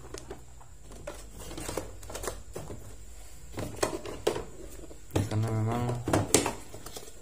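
Hard plastic toolbox trays and tools being handled: scattered light clicks and knocks as items are moved and set into the compartments.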